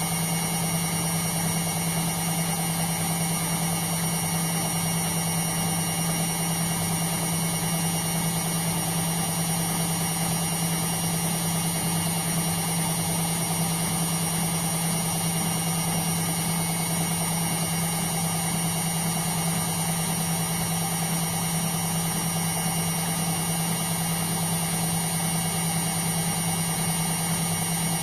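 Indesit washing machine running with a steady, unbroken hum and no tumbling rhythm.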